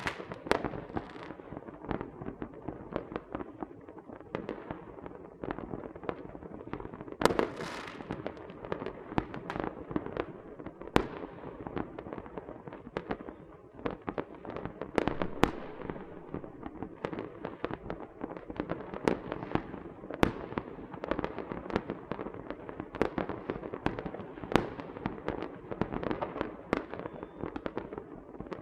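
Small fireworks and firecrackers going off: irregular sharp bangs and pops over a steady crackle, the loudest bang about seven seconds in.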